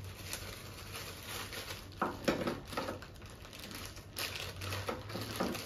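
Clear plastic bag crinkling and rustling in irregular bursts as small facial-machine attachments and a red hose are unwrapped by hand.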